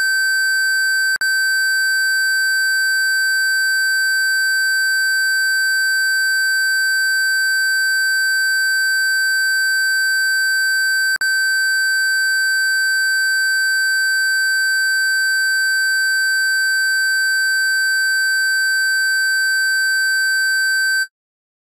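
Steady pure sine tone at 1550 Hz, with a brief click twice, about ten seconds apart. It cuts off suddenly near the end.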